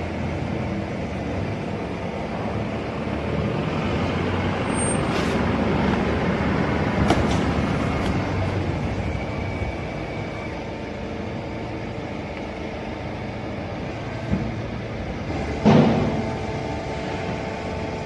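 Horizontal hydraulic cardboard baler running steadily with a low hum as the ram pushes the strapped bale out, broken by a few sharp clunks, the loudest about sixteen seconds in.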